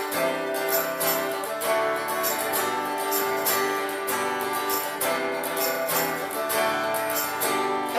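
Worship band playing an instrumental passage between sung lines, with strummed guitar over sustained chords and a steady beat.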